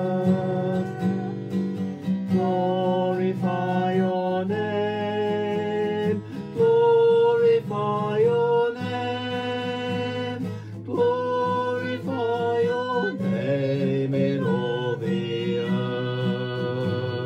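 Worship song: a man singing held notes over a strummed acoustic guitar.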